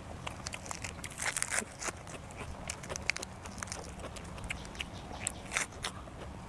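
A person biting and chewing a raw leafy vegetable: irregular crunches and wet mouth clicks, busiest about a second and a half in.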